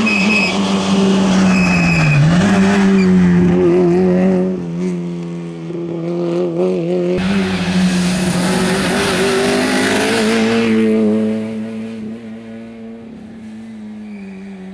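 Rally car engine held at high revs on a gravel stage, with a brief dip in revs about two seconds in. In the middle it passes with a loud rush of tyre and gravel noise, then the sound drops away.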